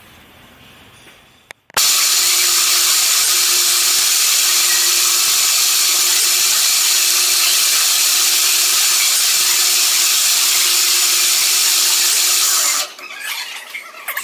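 Metal lathe making a facing cut, the tool taking a roughing pass across the end of the spinning workpiece. It gives a loud, steady hiss and squeal over a steady hum, starting abruptly about two seconds in and stopping suddenly near the end.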